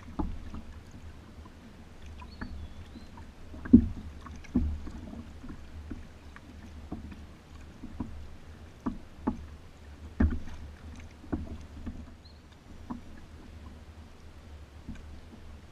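Kayak paddling: irregular knocks and splashes from a paddle dipping and bumping against the kayak, over a steady low rumble. The sharpest knocks come about four and ten seconds in.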